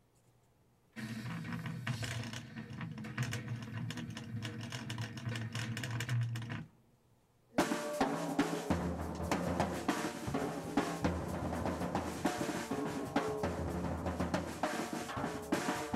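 Acoustic drum kit played with sticks in fast rudiment rolls and fills across snare and toms, with bass drum underneath. It starts about a second in, stops briefly near the middle, then comes back with another fast run.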